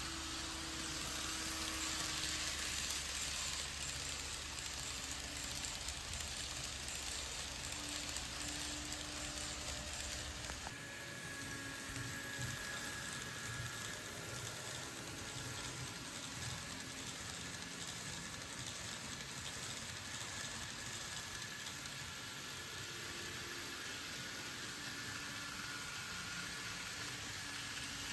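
Model trains running on sectional track: a steady whirring hiss of small wheels and motors, with faint steady tones. A low hum drops away suddenly about eleven seconds in.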